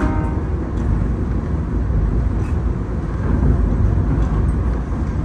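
Steady low running noise of a passenger railcar rolling along the track, heard from inside the car, with a few faint clicks.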